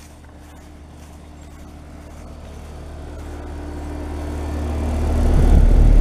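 A Carrier Comfort outdoor heat pump unit running in heat mode: its fan and compressor hum, growing steadily louder as the microphone nears the unit. About five seconds in, air from the fan buffets the microphone over the top grille with a low rumble.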